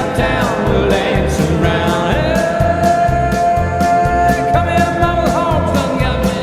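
Hockey goal song playing: singing over a steady drum beat, with one note held for a couple of seconds in the middle.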